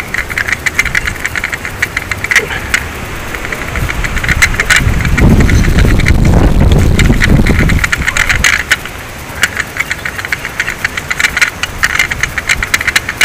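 Hand fish scaler with a scale-catching cup scraping rapidly along a small mackerel scad on a plastic cutting board: a fast run of rasping strokes. About four seconds in, a loud low rumble rises over the scraping for a few seconds, then dies away.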